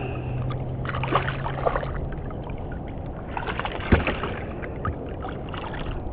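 Water splashing and small knocks against a kayak as a small redfish is fought at the side, with one sharper knock partway through. A low steady hum stops about two seconds in.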